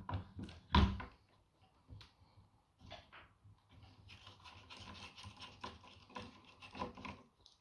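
Screwdriver turning a small screw out of an airsoft rifle's body: faint scratching and rubbing, with a sharp knock about a second in.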